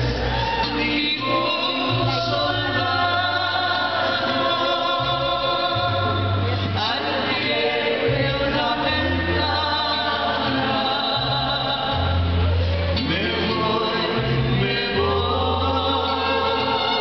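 Mariachi ensemble playing and singing a religious song, several voices together over a bass line that changes note every second or so.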